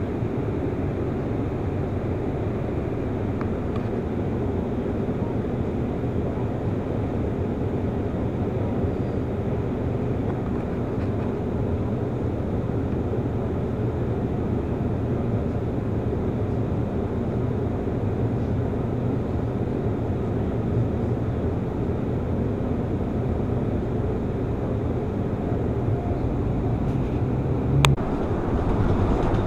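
Inside a Scania Citywide LF articulated low-floor city bus, a steady low drone of the running bus, heard close to the articulation bellows. One short, sharp click near the end.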